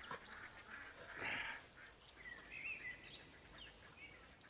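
Faint outdoor ambience with birds chirping: a few short wavering chirps and a falling whistle in the second half. A brief soft hiss comes about a second in.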